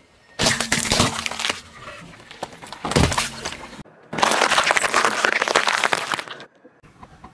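Car tyre rolling over and crushing plastic toothpick dispensers full of wooden toothpicks: loud cracking and snapping about half a second in and again near three seconds. Then a car tyre crushing a row of cucumbers: a long run of crunching from about four seconds in until about six.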